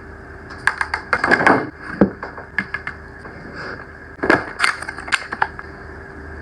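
Makeup packaging being handled by hand: sharp clicks, taps and rustling in two clusters, about a second in and again about four seconds in, over a faint steady hum.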